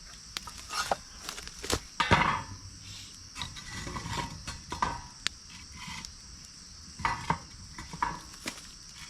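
Crickets chirping steadily while camp utensils are handled: scattered clinks and knocks with a few short scrapes and rustles, as gear is set out to prepare chimarrão.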